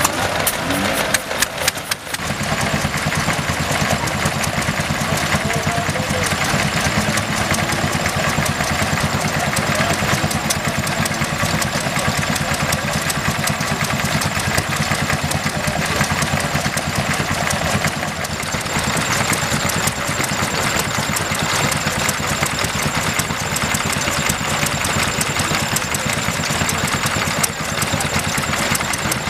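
Small vintage stationary engines running steadily, with a rapid, continuous firing beat.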